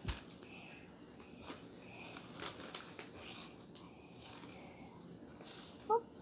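Faint crinkling of a foil snack bag and chewing, with light scattered clicks. Near the end, a brief high-pitched cry that rises in pitch.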